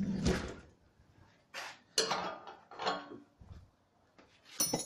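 Metal hand tools clanking and clinking together in a handful of separate sharp knocks, each ringing briefly, as the tools are sorted through for the right size.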